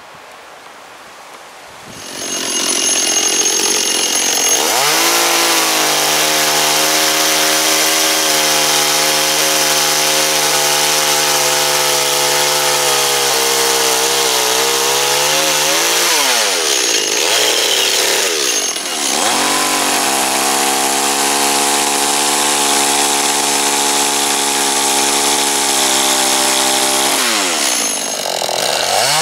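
Two-stroke chainsaw cutting into a wooden block. It starts about two seconds in and revs up to high speed about five seconds in. Its revs drop and pick up again twice, around halfway and near the end.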